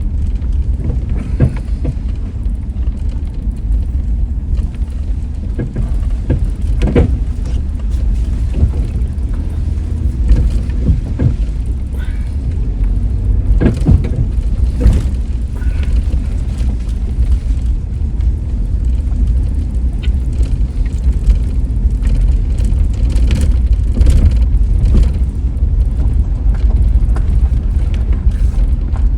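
Car driving on a rough road: a steady low road rumble with scattered knocks and clatters.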